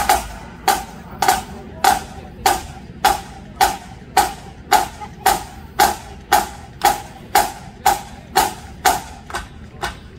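Drummers playing a steady pulse of sharp wooden clicks, a little under two a second, which quicken near the end.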